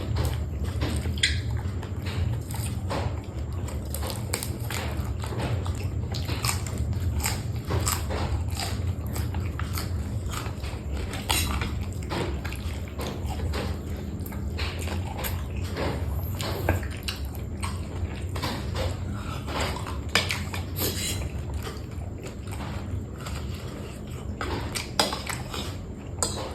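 Close-miked eating of crunchy food, a spicy papaya salad with raw vegetables and seafood: many irregular crunches and clicks of biting and chewing over a steady low hum.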